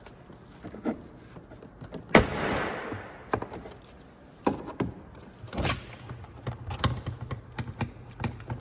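Plastic interior door trim panel being pulled and pried against tight pressure clips: a loud knock with a short rattle about two seconds in, then scattered clicks and knocks of plastic and clips.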